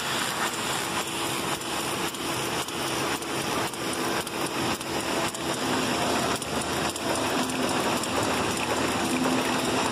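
Paper folding machine running, folding printed 8-page sections with an accordion pocket fold: a steady dense clatter of rollers, belts and sheets passing through, with a faint hum underneath.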